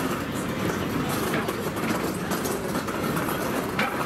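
Steady background noise of a busy city street: an even rumble and hubbub with no single clear source standing out.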